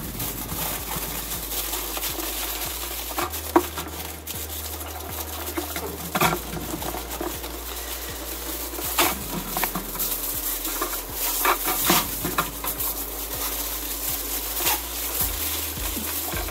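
Aluminum foil crinkling and crackling irregularly as it is wrapped and pressed around a wire wreath frame, over a steady hiss, with one sharp click about three and a half seconds in.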